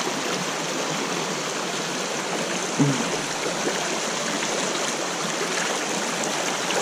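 A small trout stream running steadily over a riffle, a constant rush of water. A brief, louder short sound cuts in about three seconds in.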